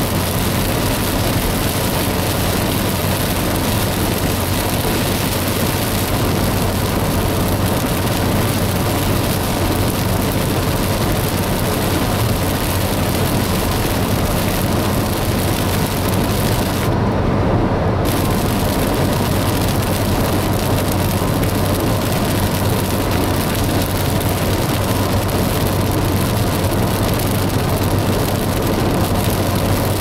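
Rain on a car's roof and windshield and tyres hissing on a wet freeway, heard inside the moving car over a steady low road and engine drone. For about a second near the middle the rain hiss cuts out as the car passes under an overpass, then it returns.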